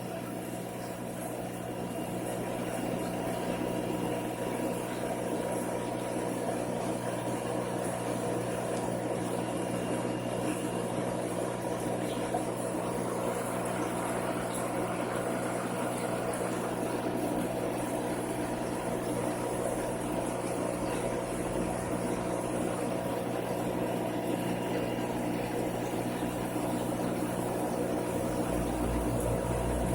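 Steady mechanical hum of aquarium water and air pumps, several constant tones over a low hiss, unchanging throughout.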